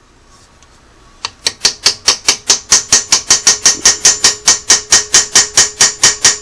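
Small ball-peen hammer tapping rapidly and evenly on a metal tool held against a seized, over-tightened screw in a Singer 301A sewing machine, about six taps a second, with a metallic ring under the taps. A single tap comes a little over a second in, and the steady tapping starts just after it.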